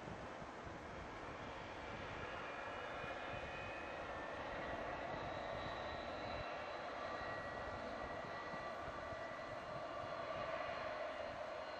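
Boeing 727's three JT8D turbofan engines running, a steady jet rumble with whining tones that shift in pitch and grow slightly louder.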